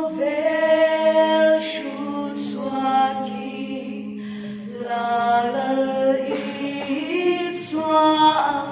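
Mixed group of women's and men's voices singing a cappella in several-part harmony, holding long chords with short breaks between phrases.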